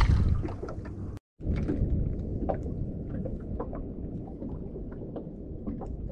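Water lapping and splashing against the hull of a small drifting boat: a steady low wash with small irregular ticks. It is louder at first, then briefly drops out about a second in.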